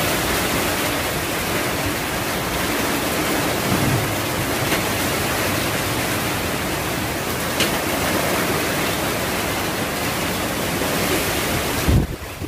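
Heavy typhoon rain and wind, a steady dense hiss. Near the end there is a low bump, and the noise briefly drops away.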